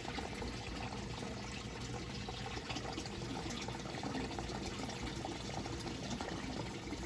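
Water pouring and splashing steadily in an aquaponics system. The pump has flooded the clay-pebble grow bed to its overflow level, and the water is draining back down through the overflow into the fish tank below.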